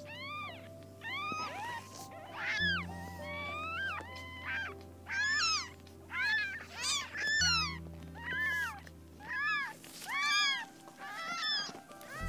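Young kittens mewing over and over in short, high-pitched cries, about two a second, some overlapping, over soft background music.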